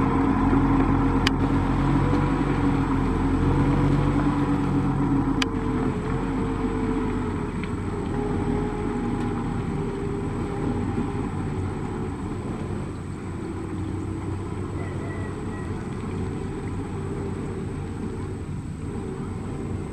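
Engine of a small open farm vehicle running steadily under load as it churns through deep mud, growing gradually fainter as it pulls away.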